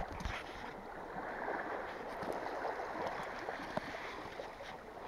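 Small waves washing and lapping at the water's edge, a steady soft wash, with a few faint clicks.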